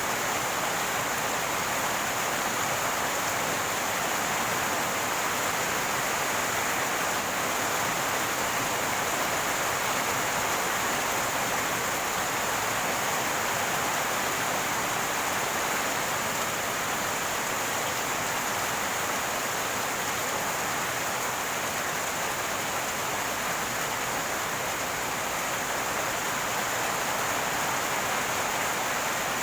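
Rainwater running and gurgling in a steady, unbroken rush.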